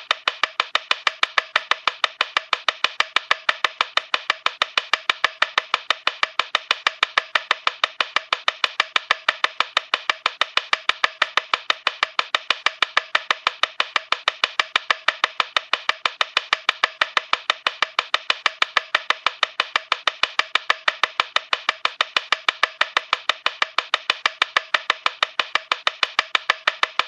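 Cartoon time-bomb ticking sound effect: rapid, evenly spaced woody ticks, several a second, going on steadily without a break.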